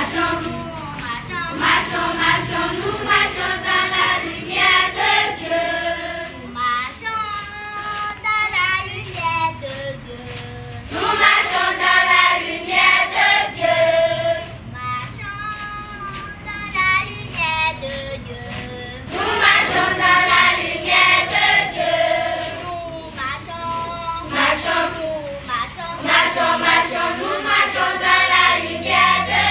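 A group of children singing together in chorus, with louder phrases every several seconds.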